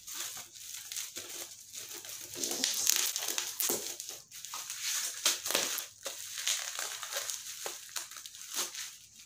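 Plastic bubble wrap crinkling and crackling in irregular bursts as it is pulled off a small cardboard box and crumpled by hand.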